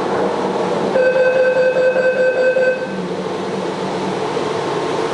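Taipei Metro Wenhu Line Bombardier rubber-tyred train running, a steady rumble of the moving car. About a second in, a steady high whine joins it for nearly two seconds, then stops.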